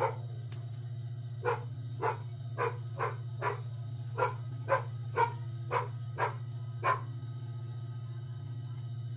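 A dog barking repeatedly, about eleven barks at roughly two a second, stopping about seven seconds in, over a steady low hum.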